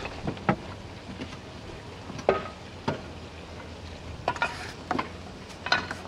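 Sharp clinks and knocks of clay roof tiles being handled and set against one another, about seven separate hits spread over several seconds.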